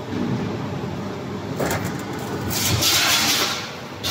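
Steel plate sliding and scraping over the bed of a hydraulic guillotine shearing machine as it is pushed into position under the blade, a hissing scrape loudest in the second half, over a steady low hum.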